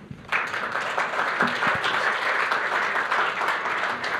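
Audience applauding, beginning suddenly about a third of a second in and stopping near the end.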